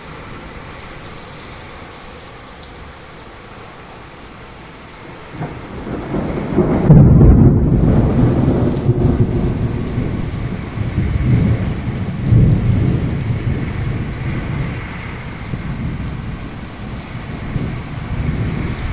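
Steady rain, then about six seconds in a long low rumble of thunder builds, loudest around seven seconds, and keeps rolling in uneven swells over the rain.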